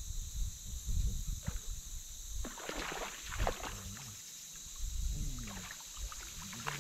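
A hooked bass splashing at the water's surface as it is reeled in toward the bank, a few short splashes in the first half, over a low rumble of wind on the microphone.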